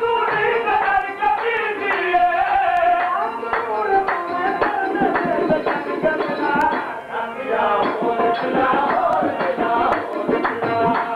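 Qawwali music: a lead voice singing held, gliding notes into a microphone over harmoniums, with hand drums keeping a quick rhythm that is thickest around the middle.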